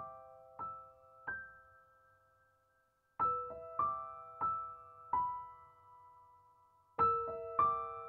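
Background music: a slow solo piano playing short phrases of single notes that ring and fade, with a pause of about two seconds in the middle.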